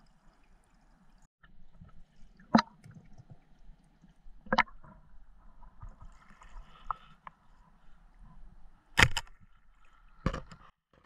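Underwater sound picked up by a submerged camera: a faint steady water hiss broken by four sharp knocks, the third, about nine seconds in, the loudest.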